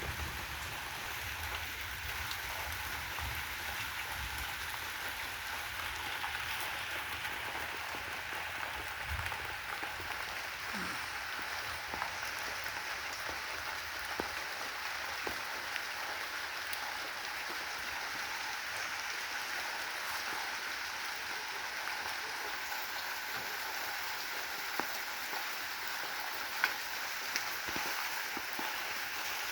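Rain falling steadily, with a few faint ticks now and then.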